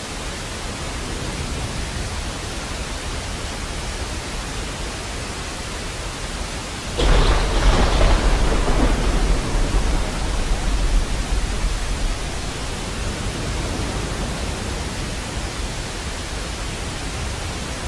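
Rain and thunder sound effect: a steady hiss of rainfall, with a thunder crack about seven seconds in that rumbles and slowly fades over several seconds.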